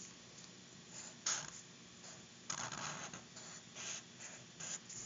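Felt tip of a Sharpie permanent marker scratching across paper as building outlines are drawn, in short strokes: a brief one about a second in, a longer one at about two and a half seconds, then a few short ones near the end.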